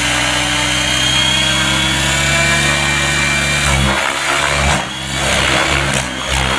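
Gaui X7 radio-controlled helicopter running at low head speed, its rotor and motor giving a steady hum. Nearly four seconds in, the sound breaks up into surging, whooshing rotor noise as the helicopter starts manoeuvring.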